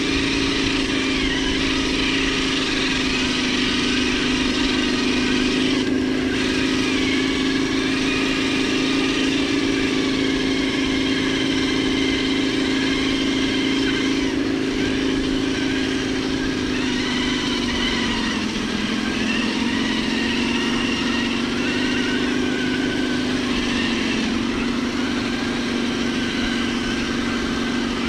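RC scale crawler's electric motor and gearbox whining steadily as the truck crawls slowly over rough ground, the pitch dipping briefly about two-thirds through.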